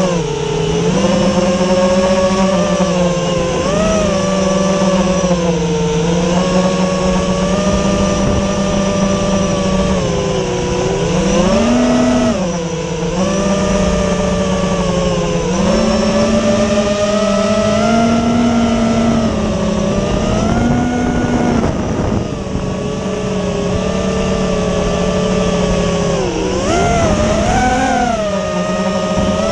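FPV quadcopter's motors and propellers buzzing, the pitch rising and falling in small swings with the throttle.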